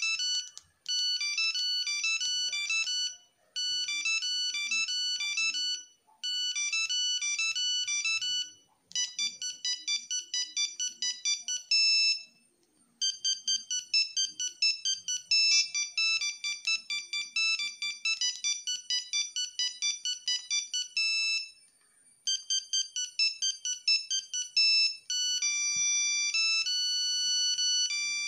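Nokia mobile phones playing melodies typed into the Composer ringtone editor: fast runs of short single-note beeps in phrases a few seconds long, split by brief pauses, with longer held notes near the end.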